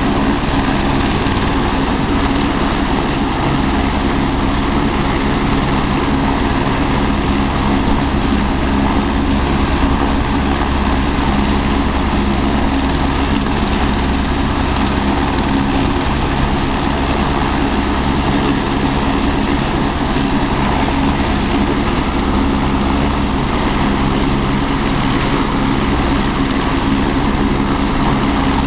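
Eurocopter AS350 AStar air-ambulance helicopter on the ground with its turbine running and main rotor turning, a steady, unchanging drone: the ground run just before liftoff.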